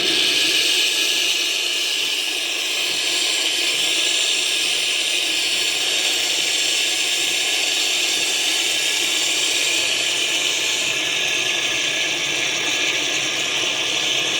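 Mr. Coffee espresso-cappuccino machine running its cappuccino cycle, steaming and frothing milk into the cup with a steady hiss.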